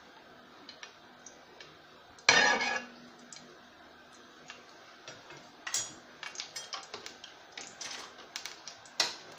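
Kitchen utensils clattering and tapping: one loud metal clank about two seconds in, then a run of light clicks and taps.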